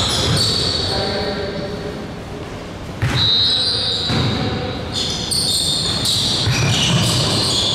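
Basketball game on an indoor court: the ball bouncing, short high squeaks starting every second or so, and players' brief calls, all echoing in a large gym.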